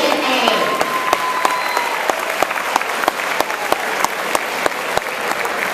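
Audience applauding, with one person nearby clapping steadily at about three claps a second.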